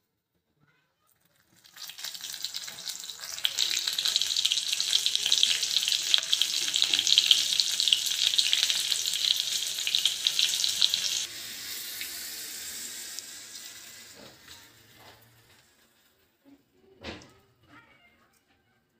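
Chopped green chillies sizzling and crackling in hot oil with mustard seeds and cumin in a small tadka pan. The sizzle builds over a couple of seconds and runs loud, then drops suddenly about eleven seconds in and fades out a few seconds later. A single short knock comes near the end.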